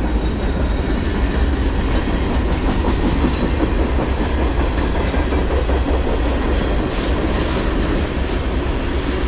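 BNSF manifest freight train's cars rolling past close by: a loud, steady rumble of steel wheels on rail, with a few light clacks.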